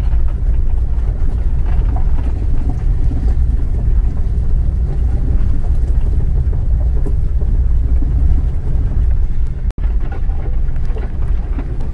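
A vehicle driving along a rough dirt trail: a steady low rumble of engine and tyres, which cuts out for an instant about ten seconds in.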